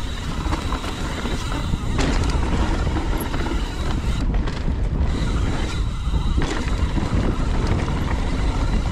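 Mountain bike riding a rough, rocky trail: a steady rush of wind on the camera microphone over constant low tyre rumble, with a few faint knocks.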